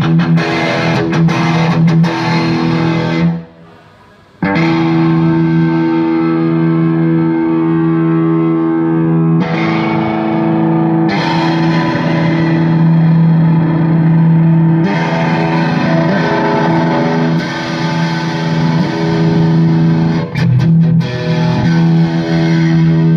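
Electric guitar played through a Kemper Profiler amp modeller with a distorted tone: chords left to ring, a break of about a second a little over three seconds in, then held chords again.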